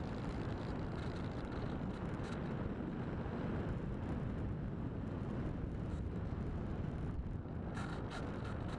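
Steady wind rush over the microphone of a camera riding on a flying RC glider, with a few faint ticks near the end.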